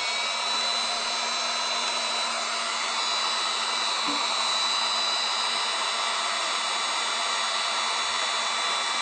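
Handheld electric heat gun running steadily, blowing hot air onto an aluminum body panel to heat the dent while it is being pulled. It makes an even rush of air with a thin high whine and a low hum.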